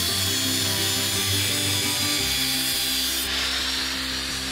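Electric angle grinder with a cut-off disc cutting through a steel plate: a loud, steady, grating whine. Near the end the whine falls in pitch as the disc winds down after the cut.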